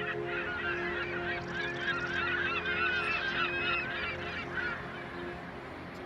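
A flock of birds calling over one another in a dense chatter of short squawks, thinning out and fading about five seconds in.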